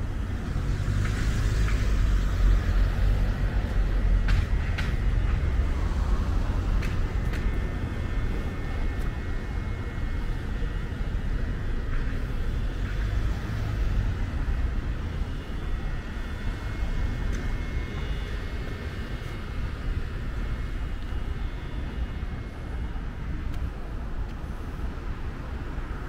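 Road traffic: a steady low rumble of vehicles on a street, swelling for the first few seconds as a vehicle passes close, with a few sharp clicks and knocks.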